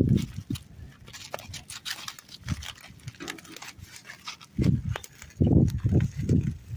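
Crumpled, fire-blackened aluminium foil crinkling and crackling as it is peeled open and handled. Short bursts of low rumbling come near the start and again several times from about four and a half seconds in.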